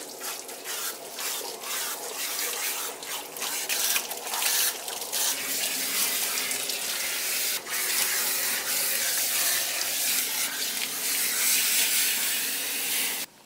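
Water spraying from a hose nozzle onto a wet dog's coat and splashing on the shower-stall floor, a steady hiss with uneven splashes. It cuts off suddenly near the end.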